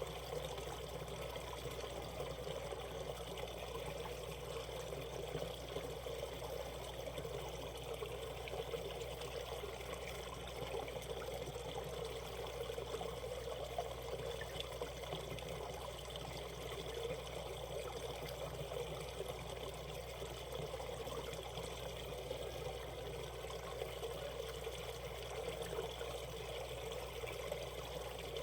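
Valley stream water flowing over rocks, a steady trickling and splashing with no pauses.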